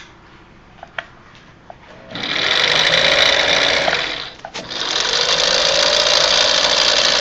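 Necchi Lydia 3 electric sewing machine running, pretty quiet, starting about two seconds in, stopping briefly near the middle, then running again steadily. A couple of small clicks come before it starts.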